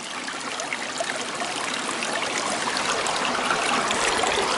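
Small mountain brook running low: a steady trickle and rush of water that grows a little louder toward the end.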